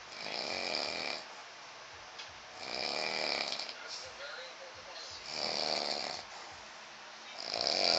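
A man snoring in a steady rhythm, four snores each about a second long, one every two and a half seconds or so.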